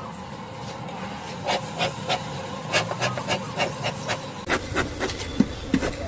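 A rubber-gloved hand scraping and knocking against a wooden beehive box: an irregular run of short scrapes and taps, starting about a second and a half in.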